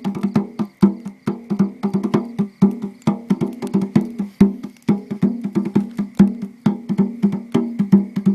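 Percussion played in a fast, steady rhythm of sharp strikes, several a second, each ringing briefly at a low pitch.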